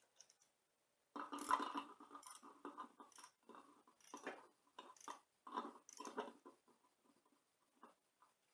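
Faint, irregular clicking and rattling of a socket ratchet being worked by hand, in short uneven bursts that stop shortly before one last click near the end.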